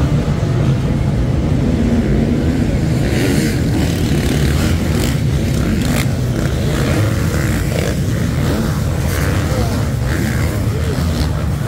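A pack of motocross bikes racing on sand, many engines running together and revving up and down.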